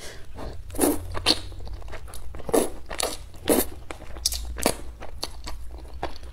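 Close-miked eating of thick Xinjiang-style fried rice noodles: a string of wet slurps and chewing smacks at irregular intervals, over a low steady hum.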